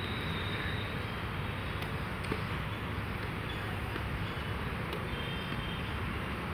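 Badminton rackets striking a shuttlecock in a rally: a few sharp pops a couple of seconds apart, over a steady low background rumble.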